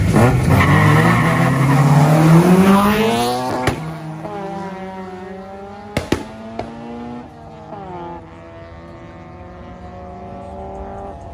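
A car engine revs hard and climbs steeply in pitch for about three and a half seconds as the car launches, then grows fainter as it pulls away into the distance. Two sharp clicks stand out, the first just after the engine note peaks and the second about two seconds later.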